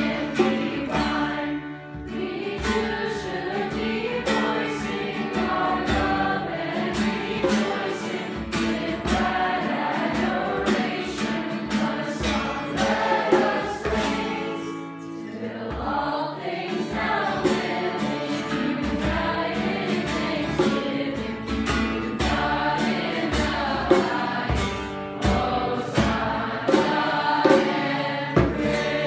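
A group of young voices singing a hymn together, accompanied by a strummed guitar.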